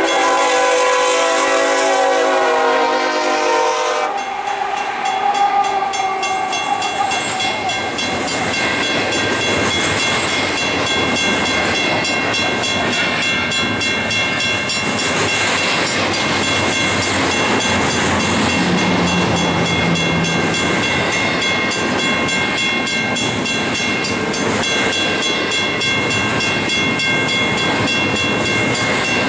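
Union Pacific ES44AC diesel-electric locomotives pass with the lead engine's multi-chime air horn sounding a chord. The horn ends about four seconds in. A long double-stack intermodal train then rolls by at speed, with steady wheel-on-rail rumble and clatter and steady high-pitched ringing from the wheels.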